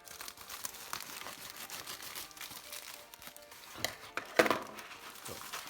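Parcel packaging being torn and crinkled open by hand, a run of crackling rustles with one sharp, louder rip a little past four seconds in.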